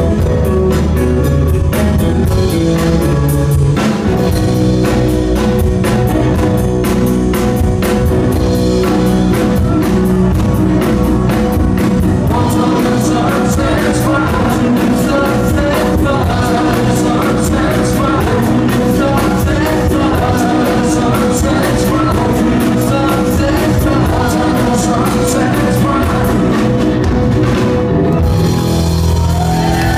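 Live rock band playing electric guitar, bass guitar, keyboard and drum kit with a steady drum beat, and singing over it from about twelve seconds in, heard from the audience.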